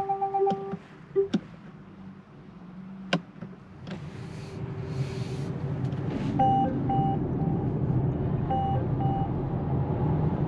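Inside a Polestar 2 electric car's cabin: rapid beeping stops half a second in, a few clicks follow, then road and tyre noise grows steadily as the car pulls away and gathers speed, with no engine note. From about six seconds in, a short warning chime repeats in pairs.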